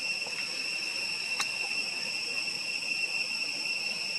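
Steady, high-pitched insect chorus: two even tones held without a break. One faint click about a second and a half in.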